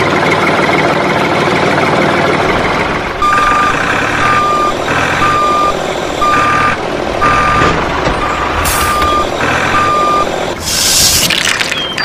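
Heavy truck sound effect: an engine running under a reversing alarm that beeps about once a second, starting about three seconds in. Near the end comes a short, loud hiss like air brakes releasing.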